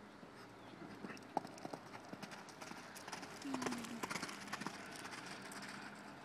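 Connemara mare's hooves striking a gravel arena at the canter, over a jump and close past, the beats louder as she nears and fading as she moves away. A short low voice-like sound comes about halfway through.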